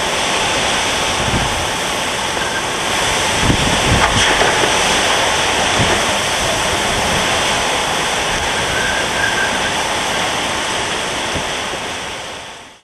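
Hurricane-force wind and rain, a loud steady rush with low buffeting on the microphone and a few stronger gusts, fading out at the very end.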